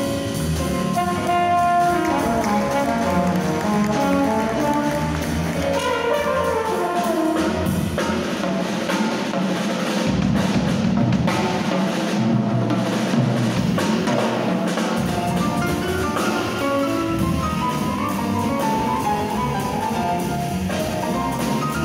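Live jazz quartet: a slide trombone plays melodic phrases over walking double bass, drum kit with busy cymbals, and grand piano. The cymbals and drums come to the front in the middle, with the melody thinner there, before the pitched lines return toward the end.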